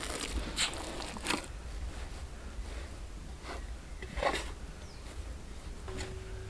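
Hands kneading soft parotta dough in a large metal pot: a few faint, irregular squishes and pats over a low steady background rumble.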